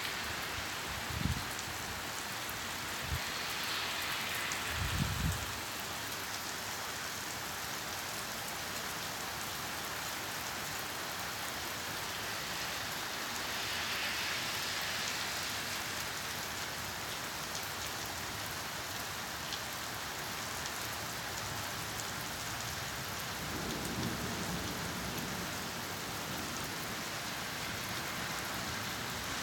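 Steady rain falling during a summer thunderstorm, with brief low rumbles of thunder early on and a longer rumble building near the end.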